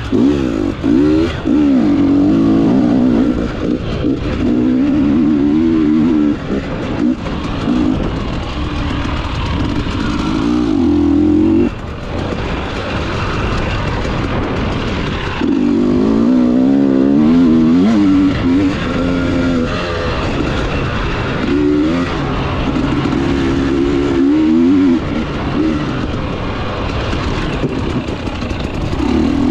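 KTM 300 TPI single-cylinder two-stroke engine revving up and down as it is ridden, pitch rising and falling with each burst of throttle, with short lulls where the throttle is eased off.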